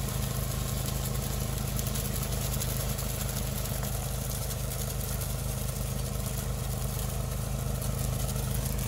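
Compact tractor engine running steadily under load while it drives a hydraulic rotary branch sweeper.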